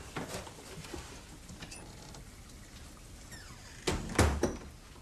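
A door being shut: a short faint creak, then a quick cluster of knocks with a heavy thud about four seconds in as it closes.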